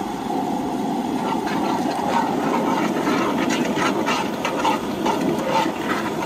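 Gas camp-stove burner running with a steady rush under a cast iron Dutch oven. From about a second in, a metal spoon stirs and scrapes through the simmering wine-and-onion liquid, making quick clicks and scrapes against the iron.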